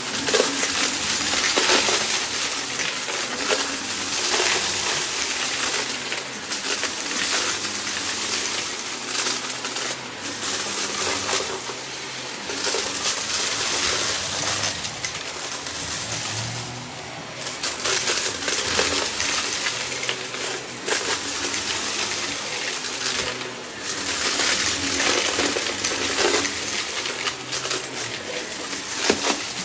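Shark upright vacuum cleaner running over a shag rug, with a steady rush of suction under a constant rattle and crackle of small bits of debris being sucked up. The loudness keeps rising and dipping as it is pushed back and forth.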